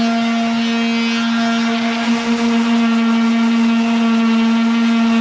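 Handheld electric sanding tool running at full speed: a loud, steady, even whine.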